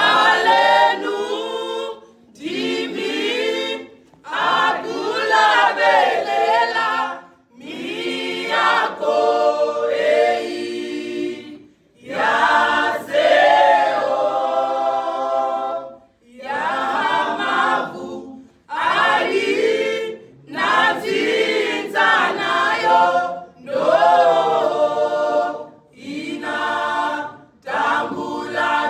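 A choir singing a cappella in harmony, in short phrases broken by brief pauses.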